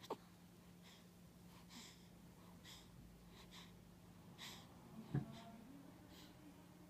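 Faint breathing of a sleeping person, with a short snore about five seconds in trailing off into a faint wheezy tone.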